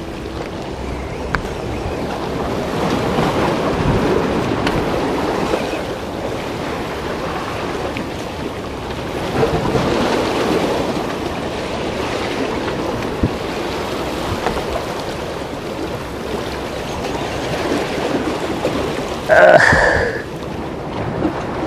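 Small waves surging and washing against a rock breakwater, with wind buffeting the microphone, swelling and easing in long waves. A short, loud sound breaks in near the end.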